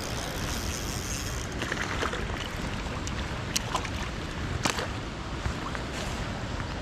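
Steady rushing noise of running water and wind on the microphone, with a few scattered light ticks and taps.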